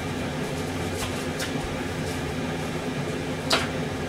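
Steady hum of a fan running in the kitchen, with a few faint ticks and one sharper click about three and a half seconds in.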